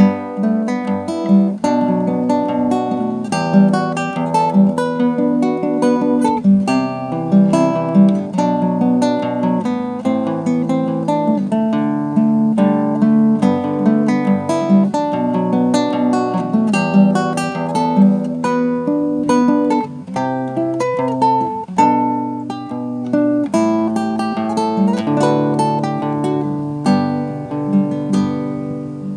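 Acoustic guitar playing an instrumental: plucked melody notes over chords and a bass line, without pause.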